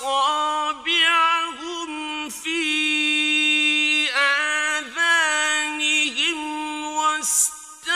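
Male Quran reciter chanting in the melodic mujawwad style: one high voice holding long, drawn-out notes with wavering ornaments, broken by short breaths.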